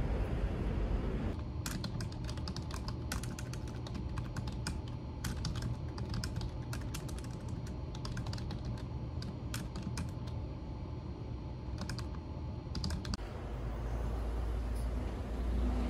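Typing on a computer keyboard: clicky keystrokes in irregular runs with short pauses, stopping about 13 seconds in. A low outdoor rumble comes before and after the typing.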